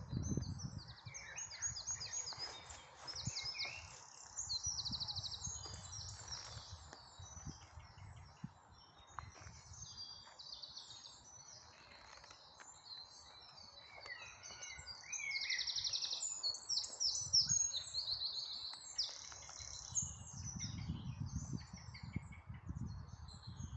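Songbirds singing outdoors, a run of overlapping chirps and fast trills of rapidly repeated notes. A low rumble sounds near the start and again near the end.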